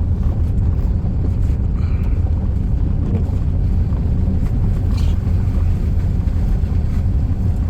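Steady low rumble of a car driving over an icy gravel road, heard from inside the cabin: tyre and road noise with the engine underneath.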